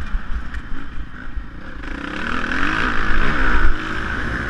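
Motocross bike engine revving as it is ridden over a dirt track, its pitch climbing and dropping with the throttle and loudest about three seconds in, heard from an onboard camera with wind buffeting the microphone.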